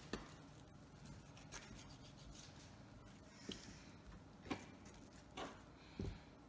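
Faint handling sounds of raw chicken leg quarters being picked up, rubbed and set down on a cutting board, with a few soft knocks scattered through.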